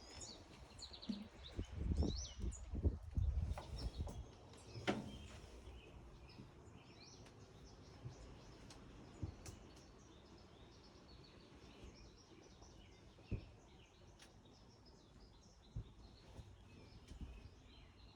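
Small birds chirping, with low rumbling bumps in the first few seconds over faint steady background noise.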